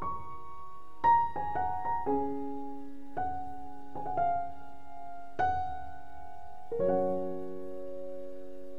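Gentle piano background music: single notes and chords struck a second or so apart, each left to ring and fade, with a fuller chord about seven seconds in that is held.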